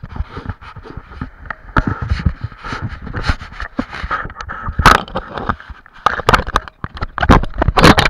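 Handling noise from a body-worn action camera: irregular scraping and knocking as the camera rubs against a wetsuit and harness. The loudest knocks come about five seconds in and again near the end.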